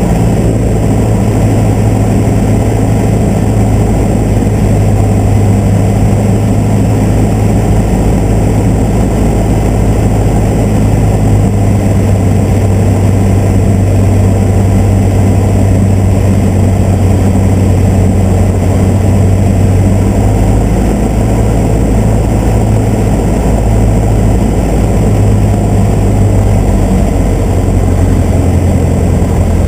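Cessna 150's Continental O-200 four-cylinder engine and propeller running steadily under power, heard from inside the cockpit during a powered approach into a strong headwind. The deep hum eases slightly near the end.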